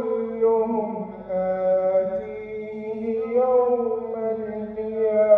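A young man reciting the Quran in a melodic, drawn-out style, amplified through a handheld microphone, holding long notes whose pitch slowly wavers and turns.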